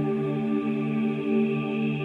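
Slow ambient music of soft held notes that shift in pitch every half second or so.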